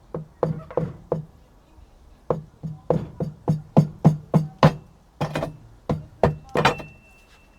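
Repeated hollow knocks on a Jandy cartridge pool filter's housing, about three a second with short gaps, each leaving a brief low ring.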